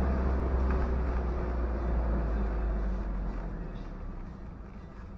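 Steady low rumble of a vehicle's engine and road noise heard inside the cab, growing quieter over the last couple of seconds.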